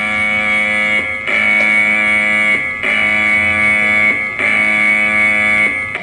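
Taiwanese earthquake early-warning alarm sounding from a warning receiver: a loud electronic chord of steady tones, repeated in segments about a second and a half long with a short break between each.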